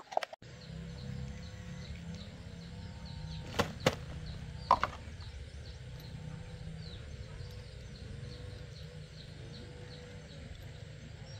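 Small metal engine parts clicking against each other as they are handled, in two pairs of sharp clicks a few seconds apart, over a steady low background rumble and faint bird calls.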